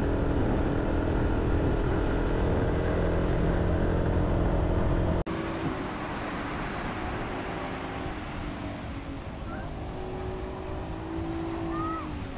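Motor vehicle engines running in road traffic, loud and steady. An abrupt cut about five seconds in drops it to quieter traffic noise, with a few short high chirps near the end.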